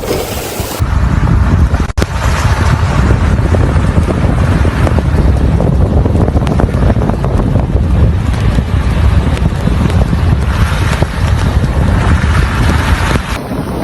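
Strong wind buffeting the microphone in a snowstorm: a loud, steady low rumble of gusting noise, with a brief drop-out about two seconds in.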